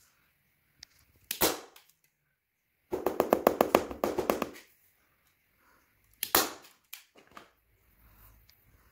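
Handheld staple gun firing staples through fabric into a board: one sharp shot, then a quick run of many clicks lasting about a second and a half, then another sharp shot and a few lighter clicks.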